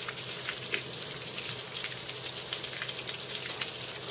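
Steady patter of rain falling on a wet surface and standing water, with faint scattered drop ticks.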